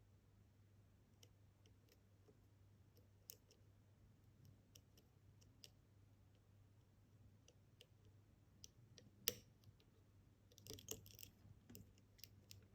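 Faint, scattered clicks of a lock pick working the spring-loaded T-pins of a Kaba experT dimple lock, with one sharper click a little past nine seconds in and a short flurry of clicks soon after: pins being lifted and set under tension.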